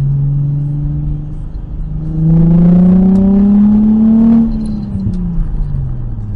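A motor vehicle's engine running steadily, then revving up in pitch and getting louder for about two seconds, before the pitch drops away as it eases off.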